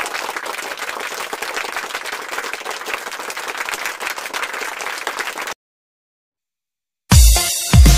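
A crowd clapping, a dense even patter, that cuts off suddenly about five and a half seconds in. After about a second and a half of silence, loud electronic music with heavy bass hits starts near the end.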